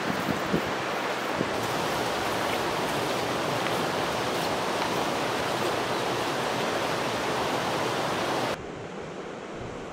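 Steady rush of river rapids, an even noise with no break; about eight and a half seconds in it cuts suddenly to a quieter, duller rush.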